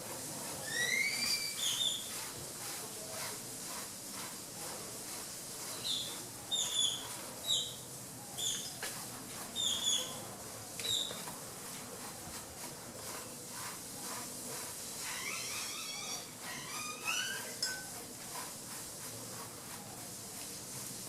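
Birds chirping outdoors: bursts of short, high, rising notes, a run of repeated chirps in the middle, and another burst near the end, over a faint steady hiss.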